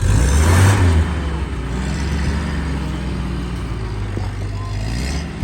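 Ford GPW jeep's four-cylinder engine running hard under load, loudest for about the first second and then holding a steady note.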